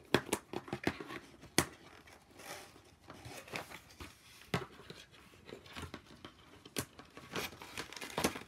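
Toy packaging being handled and pulled apart: irregular crinkling and rustling with scattered sharp clicks and snaps.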